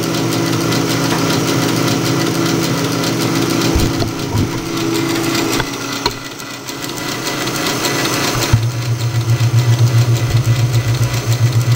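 South Bend 10K ("light ten") lathe running with its gear train driving the lead screw: a steady mechanical whir and gear hum. About two-thirds of the way in the sound turns louder and throbs several times a second as the tool bites into the steel bar for a deep cut.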